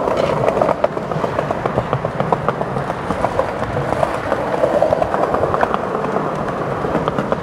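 Skateboard wheels rolling along a concrete sidewalk: a steady rough rumble with a dense patter of small clicks and rattles from the pavement surface.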